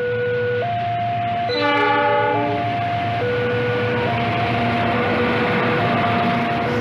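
Level-crossing alarm alternating between two tones, about one change per second. About a second and a half in, a diesel locomotive gives a short blast on its horn. The noise of the train passing close by then builds and holds.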